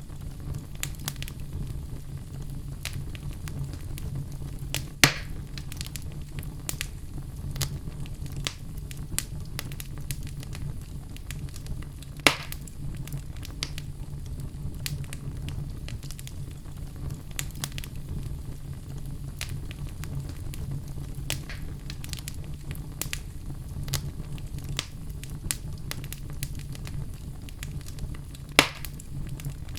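Wood fire burning in a fireplace: a steady low rumble with constant small crackles, and three much louder sharp pops spread through it.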